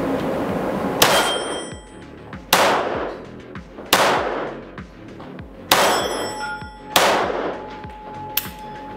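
Makarov PMM pistol in 9x18 mm fired five times in slow, deliberate succession, about a second and a half between shots. Each shot is a sharp crack followed by a long echoing ring off the indoor range. A lighter click comes near the end.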